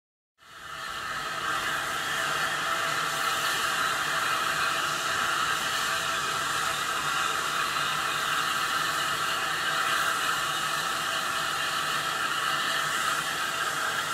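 Saddle-tank steam locomotive No. 19 standing still and letting off a steady hiss of escaping steam, which fades in about half a second in.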